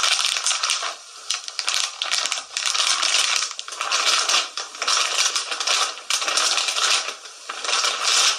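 Close-miked ASMR-style crinkling and crackling, in repeated bursts of about a second, with many sharp little clicks.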